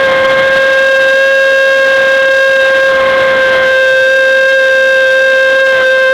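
A single sustained high note, sliding up slightly into pitch as it starts and then holding steady and unwavering, like a held note from a wind instrument or a tone generator.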